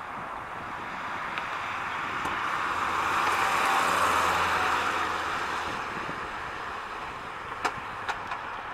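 1980 Chevrolet Chevette with its 1.6-litre inline-four driving past: engine and tyre noise swells to a peak about four seconds in, then fades as the car moves away. Two sharp clicks near the end.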